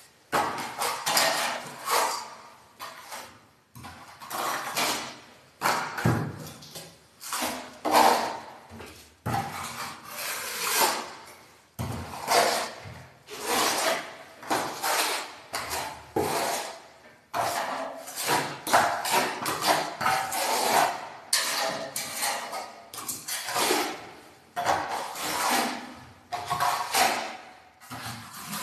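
Plastering trowel scraping across freshly applied fine finishing plaster on a wall, in repeated strokes roughly one a second.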